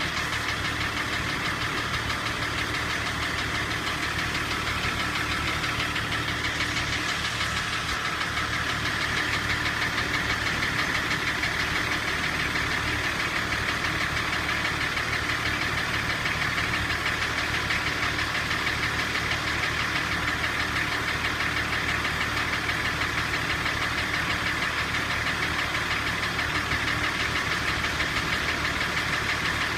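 M51 engine running steadily with a rapid, even knock. The owner cannot tell what is causing the knock.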